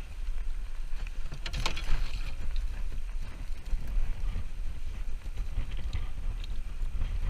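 Strong wind buffeting the microphone as a fluctuating low rumble, with a brief sharp clatter about a second and a half in.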